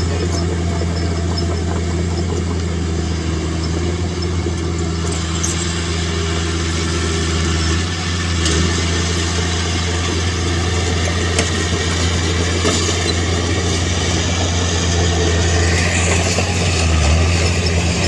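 Diesel engine of heavy earthmoving equipment running steadily at an even speed, a low constant hum.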